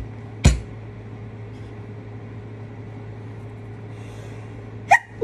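A steady low hum runs throughout, with one sharp thump about half a second in. Near the end a woman catches her breath in a sudden voiced 'ah' as a sneeze begins, the first of a run of repeated sneezes.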